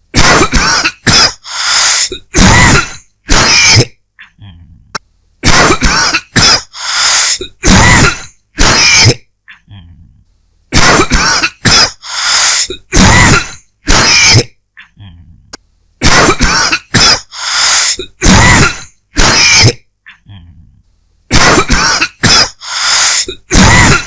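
A person's dry cough, in fits of about five coughs each, with a short pause between fits; the same fit comes round again about every five seconds.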